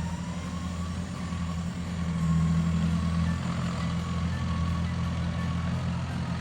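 Engine of a farm machine running steadily as it hauls a fallen tree, a little louder for about a second partway through, with a thin steady whine over it.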